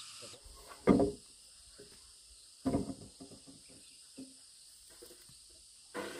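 Two heavy knocks on timber, like a hammer or mallet striking a wooden beam, about a second and a half apart, each ringing briefly, with a lighter knock later and a few faint taps between.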